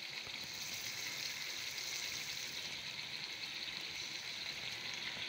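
Chicken and okra curry sizzling gently in a wok: a steady, soft hiss.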